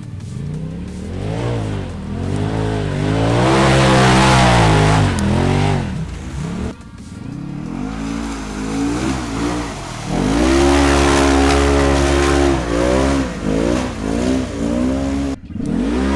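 Polaris side-by-side UTV engine revving hard under load in mud and ruts, pitch climbing and falling again and again, with long held revs and a run of quick throttle blips near the end.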